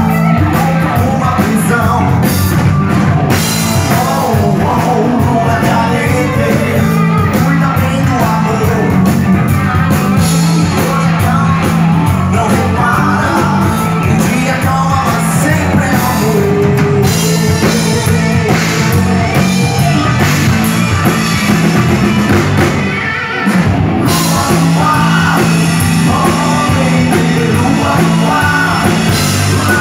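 Live rock band playing: electric guitars, bass and drums with a singer, loud throughout, with a brief break about three quarters of the way through.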